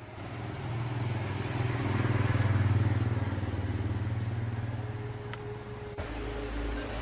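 A vehicle engine running, growing louder to a peak about three seconds in and then easing off. It changes abruptly near the end to a deeper rumble.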